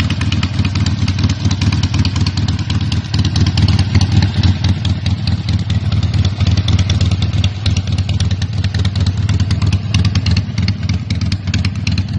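Motorcycle engine running at a steady speed, a fast even train of firing pulses over a deep low hum.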